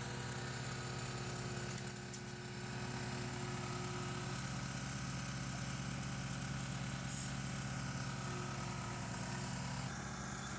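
A machine's engine running steadily with an even, low hum.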